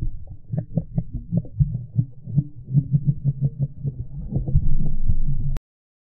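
Muffled underwater sound from a camera held below the sea surface: low, rhythmic thumping of water against the housing, about four pulses a second, with nothing above a dull rumble. It cuts off suddenly near the end.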